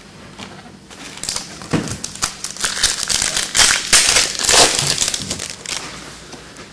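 Foil trading-card pack wrapper crinkling and crackling as it is handled and opened, in a run of rustles that grows louder toward the middle and then dies away.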